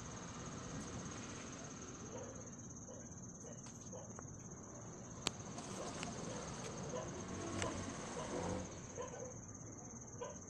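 Faint background noise with a steady high-pitched trill and a low murmur, broken by a few sharp clicks.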